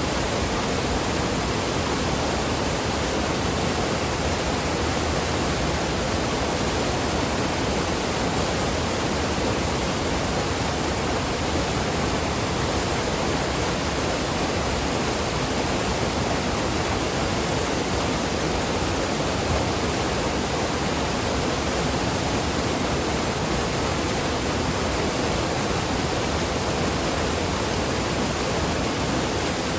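Fast-flowing water rushing steadily, an even unbroken rush with no pauses or changes.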